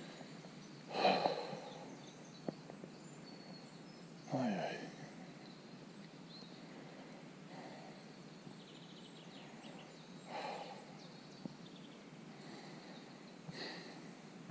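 A hiker's heavy breathing on a steep climb: four loud puffing exhales a few seconds apart, the second carrying a falling voiced sigh, over a low steady outdoor background.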